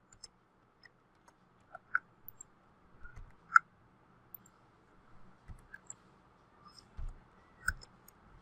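Computer mouse clicking irregularly, about a dozen sharp clicks with the loudest about three and a half seconds in, and a few soft low thumps between them.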